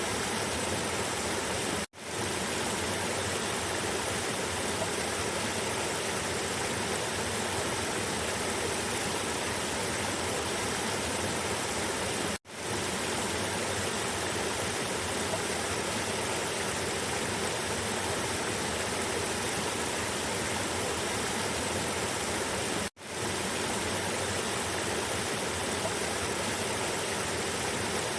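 Cascading river water rushing steadily over rocks, a dense even rush. Three times, about ten seconds apart, it cuts out for an instant and fades back in.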